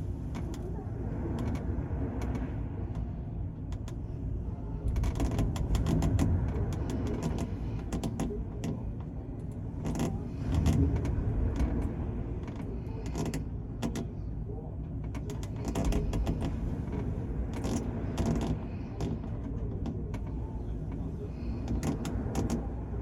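Car ferry at sea: a steady low rumble of the ship's engines and water rushing along the hull, swelling louder every few seconds, with scattered short clicks and creaks.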